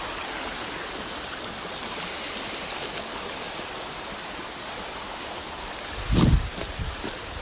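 Waterfall rushing steadily, with a brief low thump about six seconds in.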